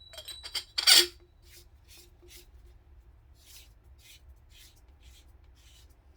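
Metal suppressor parts clicking, with a sharp clink about a second in, followed by faint, even scraping strokes about twice a second as the threaded suppressor tube and end cap are screwed together with no baffles inside.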